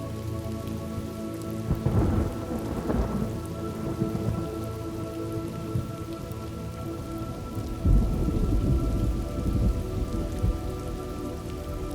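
Steady rain with two rolls of thunder, about two seconds in and again about eight seconds in, the second one louder.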